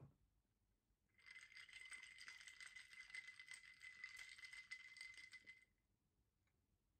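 Ice cubes rattling and clinking against the inside of a tall glass as it is swirled, a dense fast rattle of small clicks lasting about four seconds and stopping abruptly.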